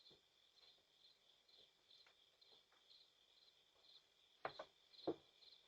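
Faint crickets chirping steadily, about two to three chirps a second, with two short soft knocks near the end.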